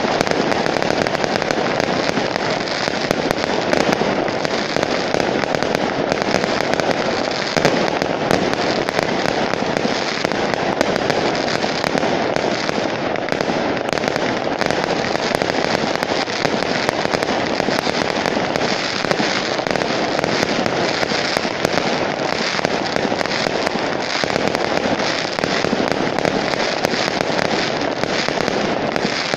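Fireworks display: a rapid, unbroken barrage of aerial shells bursting and crackling, the bangs packed so closely that they run together into a steady din with no pause.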